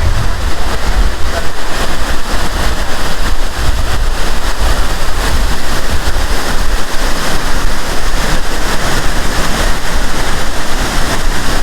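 Multnomah Falls pouring: a loud, steady rush of falling water with a deep rumble underneath.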